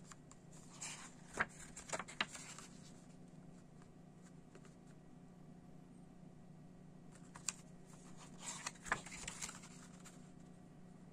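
Pages of a glossy CD booklet being turned by hand: two short runs of paper rustling and light taps, the first about a second in and the second near eight seconds, over a faint steady hum.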